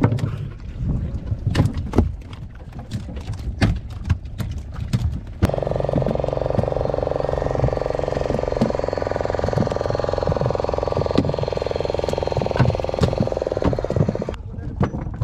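A boat's small engine running steadily for about nine seconds, starting abruptly partway in and cutting off just before the end. Before it come scattered knocks and clicks from handling on the wooden boat.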